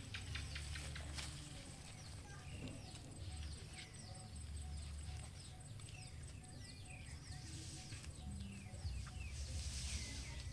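Small birds chirping: many short, quick falling chirps, over a low rumble.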